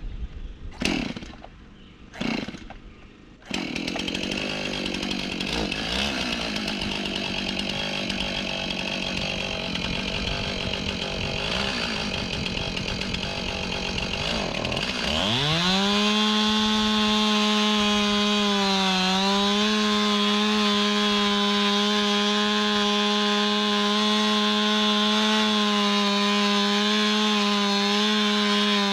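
Two-stroke chainsaw: two short bursts, then the saw runs rough and uneven. About fifteen seconds in it revs up to full throttle and holds a steady high pitch that dips briefly as it bites into the wood, cutting into an oak trunk to fell it.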